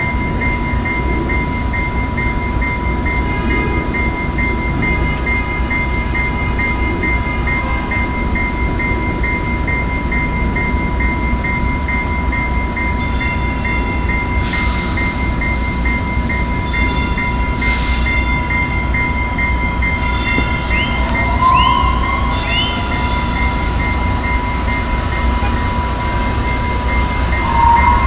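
Commuter train's diesel locomotive idling at the platform: a steady low rumble with a constant high-pitched tone over it. In the second half there are a few brief high squeals and hisses.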